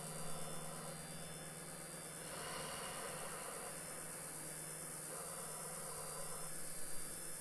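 Ambient electronic music from a live synthesizer set: a steady low drone with a hissing noise wash that swells a little over two seconds in.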